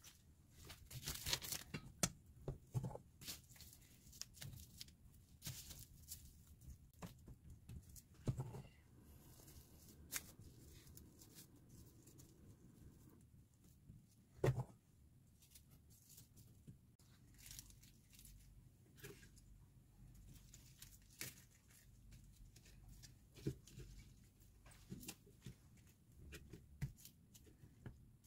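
Faint food-prep handling sounds: a sheet of dried laver crinkling and rustling on a wooden cutting board, then rice being pressed out and fried spam slices laid on, with scattered irregular taps and one sharper knock about halfway through.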